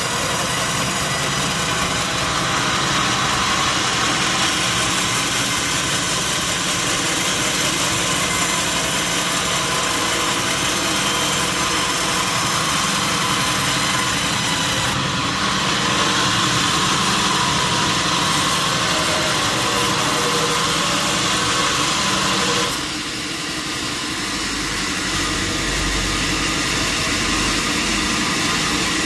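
Sawmill machinery running steadily, a continuous mechanical din. About 23 seconds in the sound changes abruptly and drops slightly in level, then carries on.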